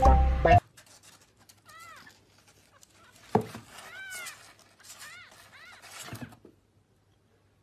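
Kitten mewing: about five short, high cries, each rising and falling in pitch, with a single thump about three seconds in. A snatch of music cuts off at the start.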